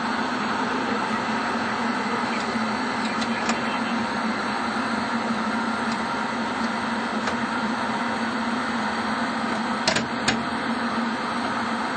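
Steady hum and hiss of the space station's cabin ventilation, with a few faint clicks from the hatch mechanism as the Poisk–Soyuz hatch is cranked shut, and two sharp clicks about ten seconds in.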